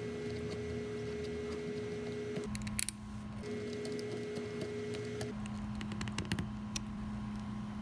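Small screws being set and driven with a hand screwdriver into the aluminium accelerator pump cover of an S&S Super E carburetor: faint metal clicks and ticks, most of them late, over a steady background hum that drops out and returns.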